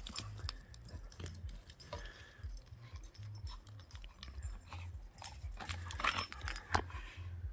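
Bull terrier at play, scuffling with an object it has grabbed, with many small clicks and knocks that are loudest about six to seven seconds in.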